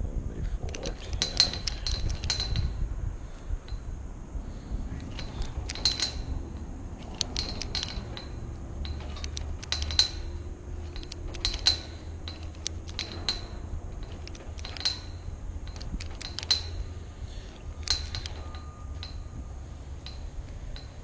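Old, rusted Master combination padlock being worked by hand: short clusters of metallic clicks and clinks every second or two as its dials are turned and the lock is tried, in an attempt to find the combination.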